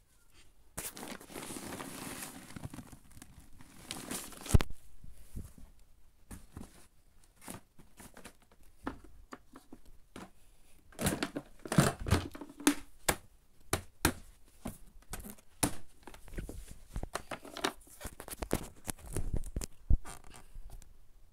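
Paper dust bag of a Numatic vacuum cleaner crinkling and rustling as it is handled, with a sharp knock near the end of the rustling. Then a run of clicks and knocks from the vacuum's plastic parts as the motor head is handled.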